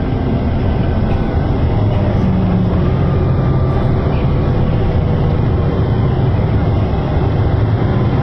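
Volvo B9TL double-decker bus's straight-six diesel engine and drivetrain running on the move, heard from inside the passenger cabin: a steady low rumble whose pitch shifts slightly, under a haze of road noise.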